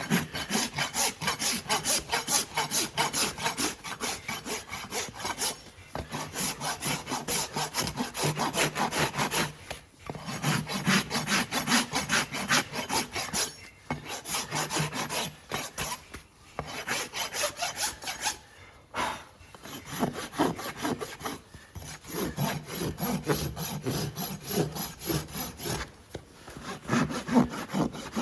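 Farrier's rasp filing a horse's hoof wall: quick, scraping back-and-forth strokes in runs of a few seconds, broken by short pauses.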